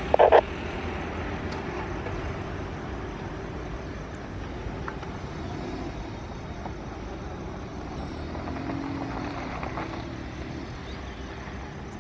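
Jet noise from a departing Airbus A320 climbing away after takeoff: a steady, distant rumble that fades slightly toward the end.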